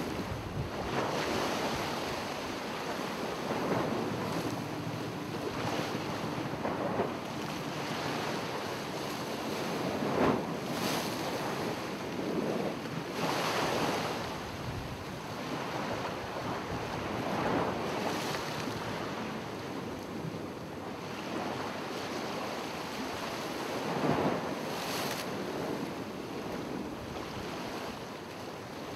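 Ocean waves washing onto the shore, the surf swelling and falling away every few seconds over a continuous rush.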